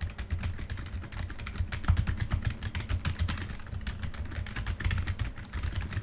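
Fast, continuous typing on a SteelSeries Apex 3 computer keyboard: a dense patter of keystroke clicks with dull thuds from the desk, picked up by a Razer Seiren Mini USB microphone set to the keyboard's right side.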